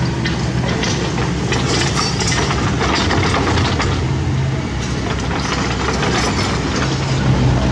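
CAT mini excavator's diesel engine running steadily with a low hum, a little louder near the end, with irregular clicks and knocks over it.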